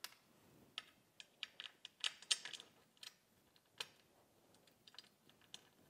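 Light, irregular metal clicks and taps of small bolts, washers and nuts being picked up off a bench and fitted by hand into a corner hole of a metal tank shelf.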